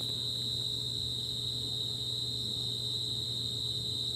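A steady, unbroken high-pitched tone over a faint low hum.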